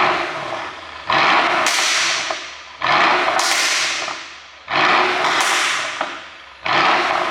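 Mercedes-AMG S63 coupe's twin-turbo V8 exhaust being blipped repeatedly: five sudden loud bursts of exhaust noise, each dying away over a second or so, on a tune set up to pop and crackle on the overrun.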